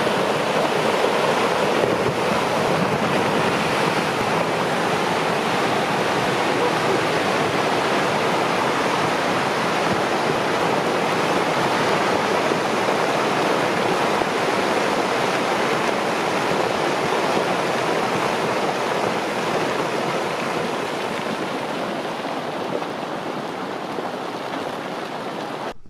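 Rockfall crashing down a snowy mountain face: a steady, loud rushing noise of falling rock and snow, easing slightly near the end.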